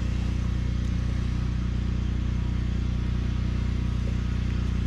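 An engine idling steadily, with a low, even hum and a fine regular pulse.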